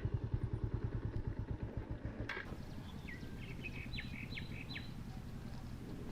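Motorcycle engine running with an even low beat that fades away over the first two seconds or so, followed by a click. After that a few short bird chirps sound over a faint steady background.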